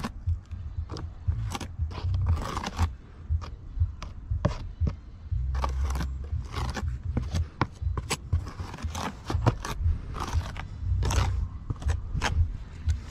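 Irregular scraping and clicking of a hand tool working on roofing materials, over a low rumble that comes and goes.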